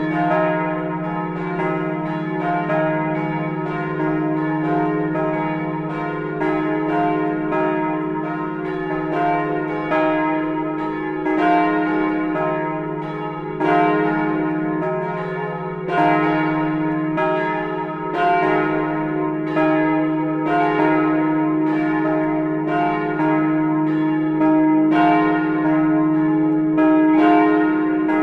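Partial peal of the Speyer Gedächtniskirche's church bells: several swinging bells striking in an irregular, overlapping sequence, each strike ringing on over a steady low hum.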